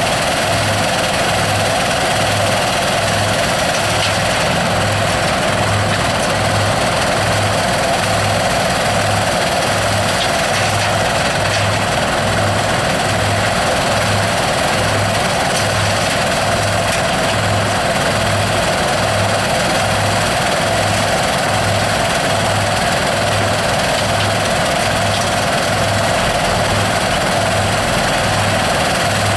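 Soil screening machine running steadily, with a low throb pulsing about once a second.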